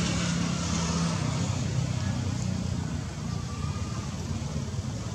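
Steady low rumble of a motor vehicle engine running, with no clear breaks or impacts.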